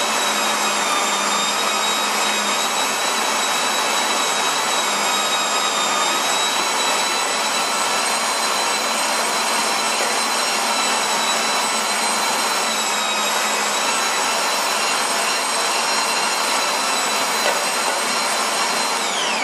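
Electric meat grinder running steadily with a high motor whine as it pushes chicken skin, onion and garlic through a 3 mm plate. Near the end it is switched off and the whine falls away.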